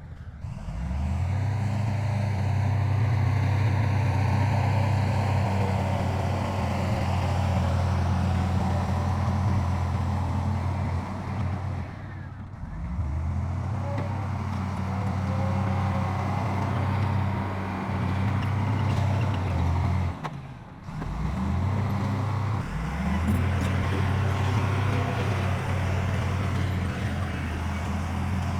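Heavy earthmoving machine's diesel engine running steadily at a constant speed. The sound breaks off briefly about twelve seconds in and again about twenty seconds in, then resumes.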